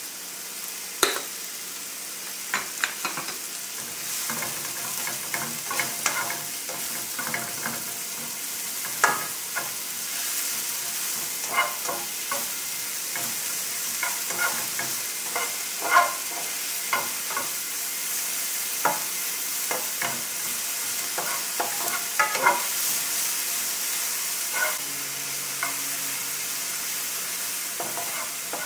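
Sliced mushrooms and garlic sautéing in oil in a frying pan, with a steady sizzle, while a spatula stirs them, knocking and scraping against the pan in frequent irregular clicks.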